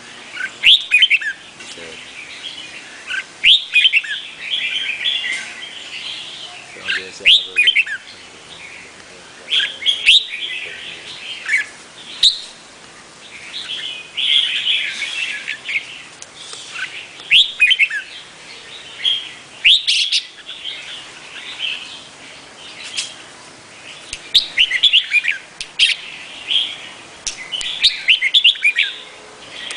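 Red-whiskered bulbul singing: short phrases of quick, bright whistled notes, repeated every two to three seconds.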